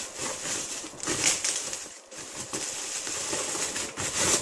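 Packaging wrap crinkling and rustling as a monitor stand is unwrapped by hand, with louder bursts about a second in and near the end.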